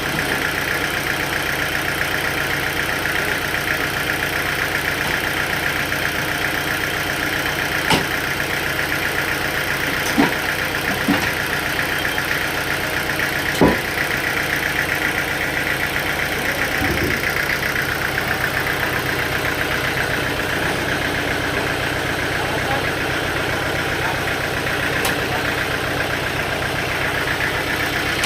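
Sawmill machinery running steadily, with a few sharp knocks, the loudest about halfway through.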